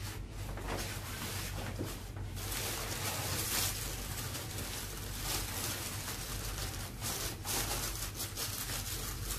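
Rustling of a blue wash bag for AC cleaning as it is handled, pulled up and fitted around a split-type air conditioner's indoor unit, over a low steady hum.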